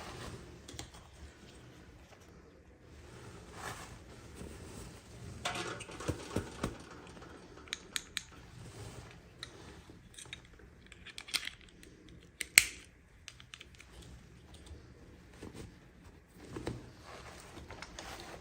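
Small plastic toy pieces and packaging being handled during an unboxing: scattered clicks, taps and rustles, with one sharp click about twelve and a half seconds in.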